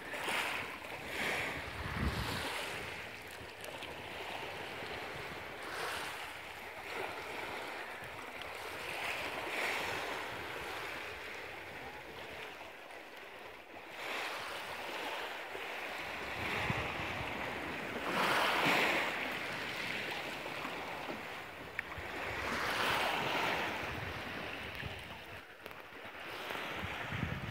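Small sea waves lapping over a shallow pebble shore, a wash that swells and fades every few seconds.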